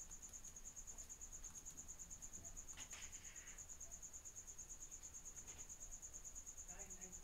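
Near silence, except for a faint, steady, high-pitched trill pulsing evenly and rapidly. It is the unwanted background noise that runs under the whole recording.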